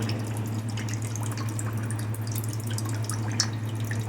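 Water dripping and trickling from small holes poked in a plastic bottle into a plastic bowl of a tabletop fountain, with many small scattered drips over a steady low hum from the mini submersible pump. The flow is only drips and a thin line, which the maker puts down to the pump's hose being too thin.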